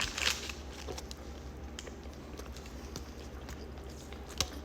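Faint scattered clicks and rustles over a low steady hum, with a short rustle near the start and a sharper click near the end.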